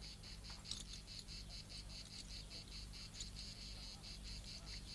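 Faint chirping of insects: a rapid, even run of short high chirps, several a second, over a low steady hum.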